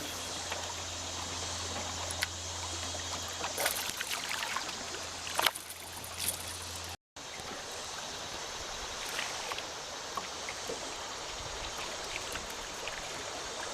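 Running river water rippling and trickling steadily around a boat, with a few sharp clicks and knocks, the loudest about five and a half seconds in. The sound drops out completely for a moment about halfway through.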